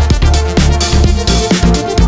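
Background electronic dance music with a steady beat and heavy bass.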